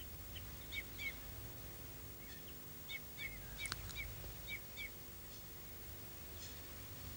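A small bird calling: short chirps, several in quick pairs, through the first five seconds, over a faint steady hum.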